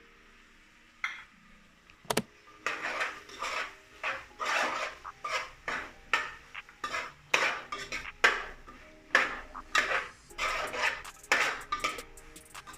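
A spoon scraping and clinking against a cooking pan in quick repeated strokes, about two a second, as green peas are stirred into a spiced tomato masala. A single sharp knock on the pan comes about two seconds in, before the steady stirring begins.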